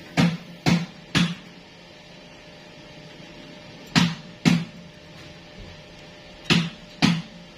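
Hammer striking metal: sharp knocks that ring briefly, three about half a second apart near the start, then two pairs later on, each pair half a second apart.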